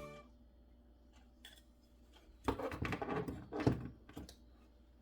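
A few light clicks, then a cluster of knocks and rattles about midway, as hard parts are handled and set down.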